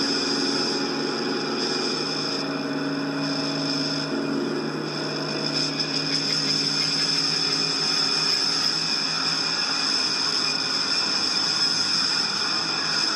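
A steady, dense drone of many held tones over a hiss, with the strongest tone high up; it thins a little around four to five seconds in, then fills out again.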